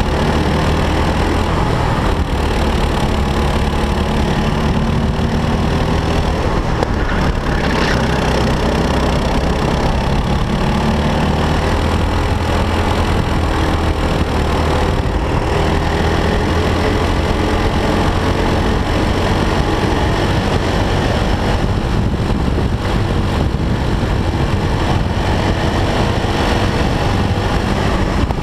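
Four-stroke racing kart engine heard from on board at race pace, its pitch rising and falling again and again as the revs climb on the straights and drop for the corners.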